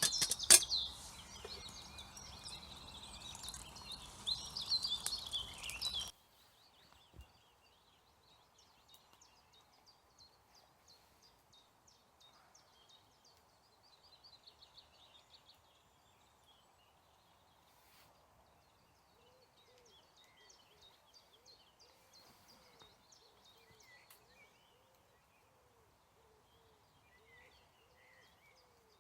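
Woodland birdsong: small birds chirping, louder for the first few seconds with a single sharp knock. The sound then drops abruptly to faint, sparse chirps, and a low call repeats over and over in the second half.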